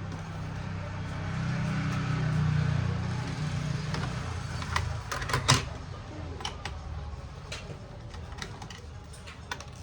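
Sharp clicks and taps of laptop parts and screws being handled during disassembly, loudest a little past the middle. Under them, a low rumble swells and fades over the first few seconds.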